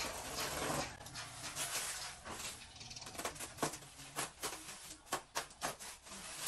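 Plastic wrapping crinkling and rustling as it is handled and pulled at on a rolled carpet, with a run of sharp crackles from about halfway through.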